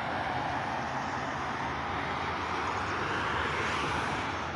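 Highway traffic noise: the tyre hiss of cars passing on the road below, swelling about three seconds in.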